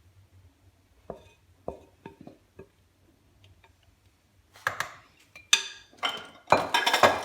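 Kitchenware knocking and clinking: a few light taps, then from about four and a half seconds in a run of louder, ringing clatters, as of a utensil or bowl striking a metal cake mould.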